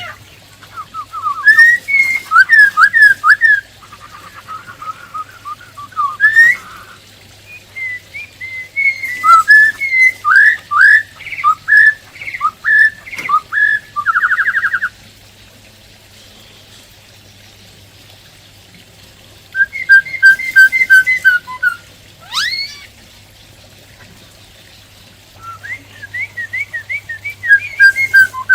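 Black-throated laughingthrush singing: bursts of loud, quick whistled notes in varied phrases, broken by pauses of a few seconds. One long rising whistle comes about three-quarters of the way through.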